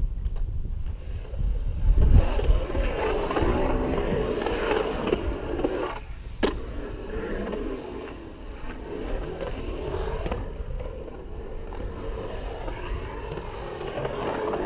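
Skateboard wheels rolling and carving on a concrete bowl, a steady grinding roll that swells about two seconds in, with one sharp clack about six and a half seconds in.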